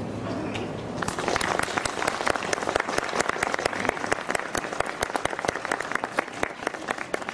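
A crowd applauding, starting about a second in: a dense, steady patter of many hands clapping.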